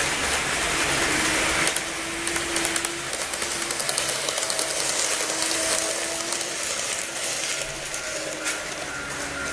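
KATO N-scale 731 series model train running past on its track: a steady small-motor whine with light clicking of the wheels over the rail joints.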